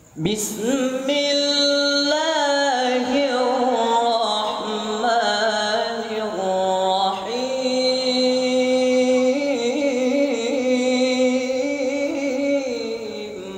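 Quran recited in melodic tilawah style by a teenage male qari into a microphone: long held notes with ornamented turns, starting abruptly and tailing off at the end. His voice has changed with adolescence and is improving, though not yet perfect.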